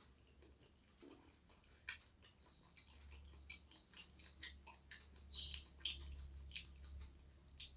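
Quiet eating by hand: irregular soft clicks and crackles of chewing and of fingers picking food off a plate, more frequent in the second half, over a faint steady low hum.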